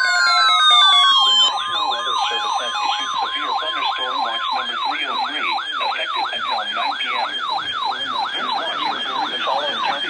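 Electronic siren in a fast yelp, its pitch sweeping up and down about three times a second, after falling glides in the first second and a half. A steady high tone sounds under it for the first four and a half seconds.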